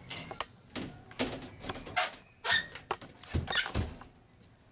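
Glass railing panel knocking and scraping against the aluminum rail tracks as it is lifted and set into place: a string of sharp clunks with brief ringing, and two heavier thunks about three and a half seconds in.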